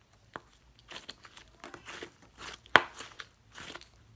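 Sticky slime being squeezed and pulled in the hands around a foam squishy toy, giving irregular short sticky pops and crackles, the loudest a sharp snap about two-thirds of the way through.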